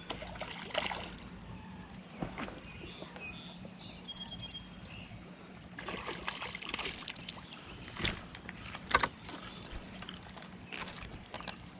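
River water sloshing and splashing in the shallows over a steady background rush, with several short, sharp splashes; the loudest comes about nine seconds in.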